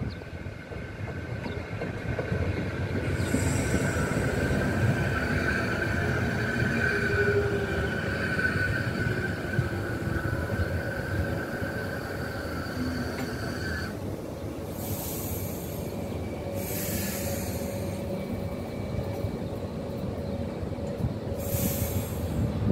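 Renfe Media Distancia passenger train pulling into the platform and braking, with a rumble and a steady high squeal that cuts off suddenly about 14 seconds in. Several short hisses follow as the train stands.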